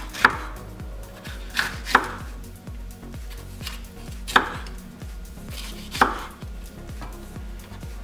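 Kitchen knife cutting a red bell pepper on a wooden cutting board, with a few sharp knocks of the blade against the board at uneven intervals.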